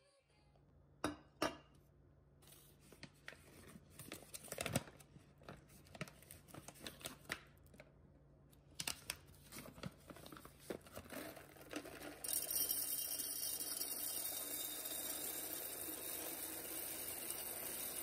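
Paper coffee bag crinkling and rustling as it is handled and opened, then whole roasted coffee beans pouring from the bag into a glass jar. The pour is a steady rattling rush that starts about two-thirds of the way in and is the loudest sound.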